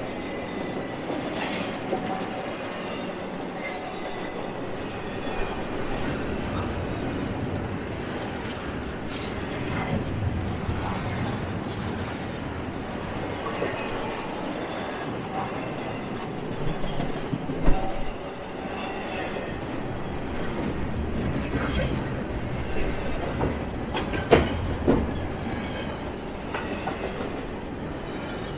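Freight train cars rolling past on a curve: a steady rumble with wheels clicking over the rail joints and faint high wheel squeals. Sharp clanks stand out a little past halfway and again about three quarters through.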